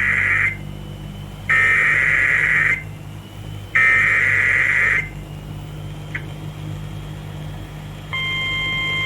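NOAA Weather Radio EAS alert: three buzzy bursts of SAME header data, each about a second long with about a second between them. After a pause, the steady 1050 Hz attention tone starts about eight seconds in, signalling a new warning. A low hum from the radio runs underneath.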